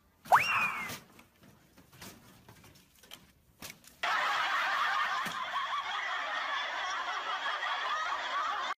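Canned laughter, starting abruptly about four seconds in and cutting off just as suddenly. Before it comes a short, loud whistle-like glide that shoots up in pitch and falls back a little, then a few faint clicks.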